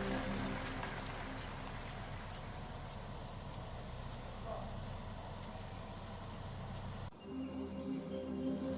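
A cricket chirping steadily with short, high, evenly spaced chirps, about two a second. The chirping stops abruptly about seven seconds in and soft music comes in.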